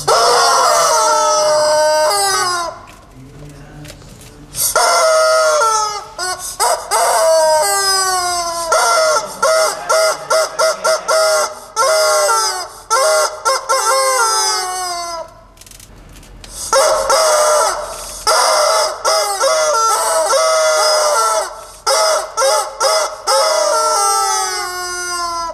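Rubber squawking-chicken toys squeezed by hand, giving loud screeches that slide down in pitch. Long drawn-out screams alternate with quick runs of short squawks, with a brief pause about two-thirds of the way through.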